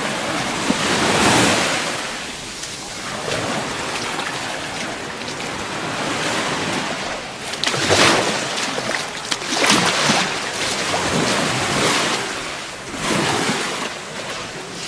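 Small Gulf of Mexico waves breaking and washing up the sand, the surf swelling and easing every few seconds, loudest about eight and ten seconds in.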